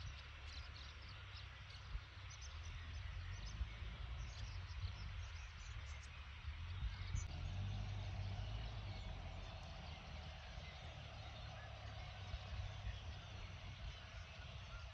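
Wind rumbling on the microphone, with a large flock of birds chirping overhead, the chirps thickest in the first half. A faint steady hum joins about halfway.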